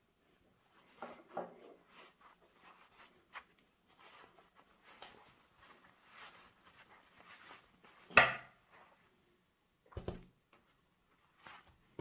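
Light rustling and handling sounds of sewing materials and tools, with a sharp knock about eight seconds in and a duller one about two seconds later.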